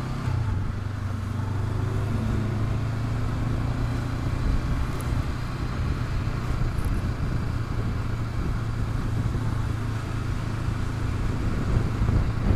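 Honda CB500X parallel-twin engine running steadily at cruising speed, under road and wind rush. Near the end the rush grows louder.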